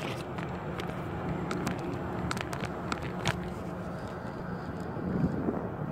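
A steady low outdoor rumble with several light, sharp clicks scattered through the first three seconds or so.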